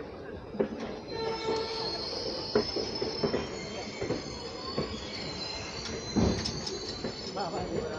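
Express train's wheels and brakes squealing as it slows into a station: several steady high squealing tones set in about a second in, over the rumble of the coaches. A thump about six seconds in.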